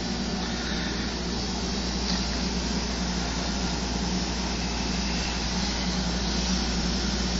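A 10,000 BTU solar-powered window air conditioner running steadily: an even fan rush over a low, constant hum.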